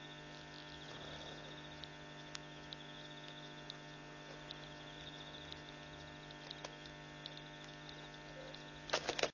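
Steady electrical mains hum, with a faint high pulsing trill and scattered small clicks over it. A quick cluster of loud knocks comes near the end.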